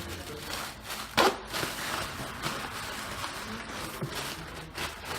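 Scattered knocks and rustling handling noises, with one sharp knock about a second in, over a steady low hum.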